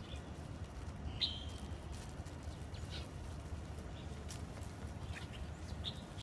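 Sparrows giving short, scattered chirps, the clearest about a second in, over a steady low rumble.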